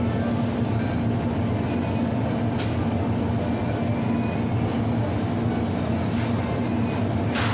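Shop-floor ambience inside a large store: a steady low hum and even background bustle, with a couple of brief clinks, the sharpest near the end.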